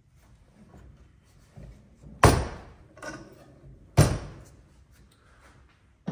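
Two sharp, loud knocks about a second and a half apart, each ringing briefly, over faint handling sounds while a clamped wooden frame is worked on at the bench.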